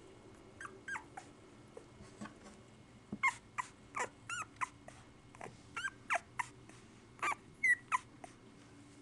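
One-week-old pit bull puppies whimpering in a string of short, high squeaks, some wavering in pitch. A few come about half a second in, then a thicker run from about three seconds to near the end.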